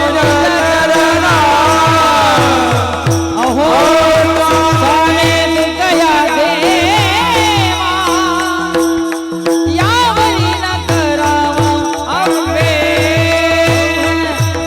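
Devotional kirtan singing: a solo voice sings a winding, heavily ornamented melody over a steady drone, with a regular low drum beat that pauses briefly about two-thirds of the way through.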